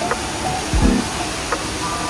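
Background pop music with a steady low beat and held synth tones, in a gap between the sung lines.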